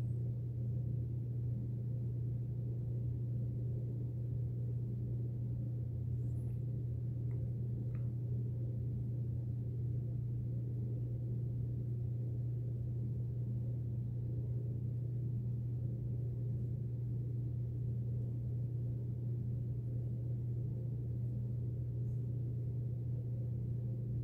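A steady low hum, unchanging throughout, with a few faint ticks about six to eight seconds in.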